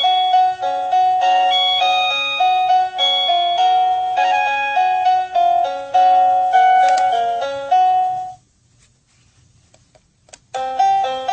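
Sadotech Model C wireless doorbell chime playing an electronic melody that stops about eight seconds in. After a short quiet gap with a few clicks, a different tune starts near the end.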